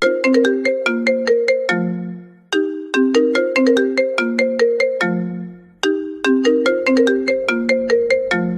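Phone ringtone: a short melody of quick, bell-like plucked notes, played as a phrase that repeats three times.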